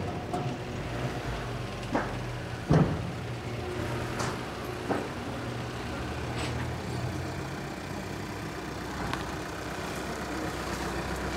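A vehicle engine idling steadily, with a few short knocks and clatters in the first five seconds, the loudest about three seconds in.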